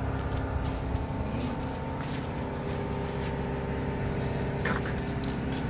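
A steady machine hum with a constant hiss, unchanging throughout, with a few faint clicks.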